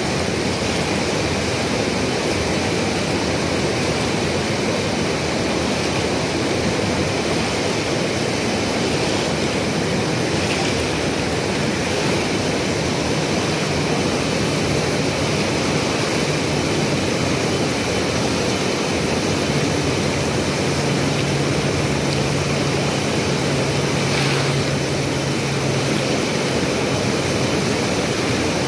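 Swollen river rushing, a loud, steady, even roar of fast-flowing water.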